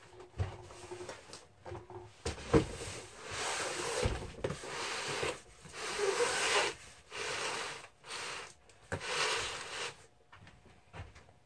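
Cardboard box set down on a wooden workbench with a couple of thumps a few seconds in, then pushed and slid across the wooden top in several scraping strokes.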